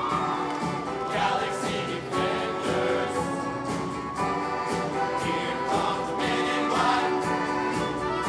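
Male show choir singing over live band accompaniment with a steady beat.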